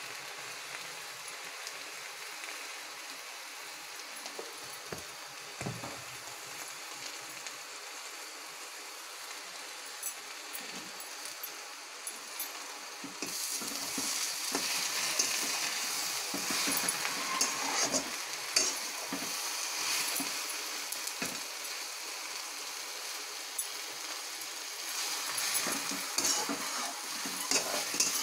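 Sunsunia saag (water clover greens) sizzling as it is stir-fried in a wok, with a metal spatula scraping and clinking against the pan. About halfway through, the frying gets louder and the spatula strokes come thick and fast.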